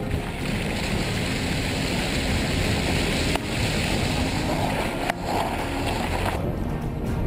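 Car tyres splashing through a shallow ford and rolling onto a dirt road, with a steady rush of wind and road noise over a microphone mounted outside the car. Background music comes back near the end.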